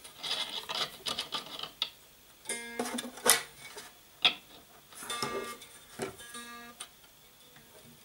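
Strings of a newly strung homemade gusli plucked a few times, each note short, while they are being pulled up to tension at the tuning pins. The strings are only stretched, not yet tuned. Handling noise and sharp clicks come between the notes.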